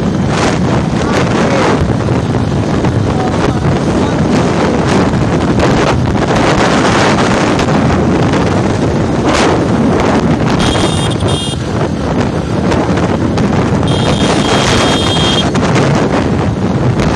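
Heavy wind buffeting on the microphone of a phone riding on a moving motorcycle, with the motorcycle's running engine under it. Two brief high tones sound, about 11 seconds in and again near 14 seconds.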